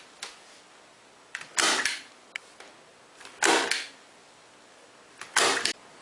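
Staple gun driving staples into the particleboard top of an ironing board to fix its padding and cover, three sharp snaps about two seconds apart, each with a faint click just before it.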